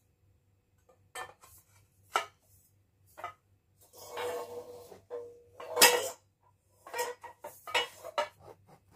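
Metal clinks and knocks from a screwdriver and the black steel legs of a flat-pack laptop table being handled and screwed together. There are single knocks about a second apart, then a longer scraping clatter with a brief ring from about four to six seconds in, the loudest knock near six seconds, and a run of quick clicks near the end.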